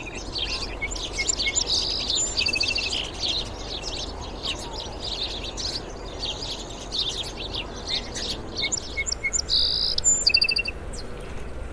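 Sparrows chirping: many quick, overlapping chirps with a few fast repeated-note runs, over a low steady background rumble.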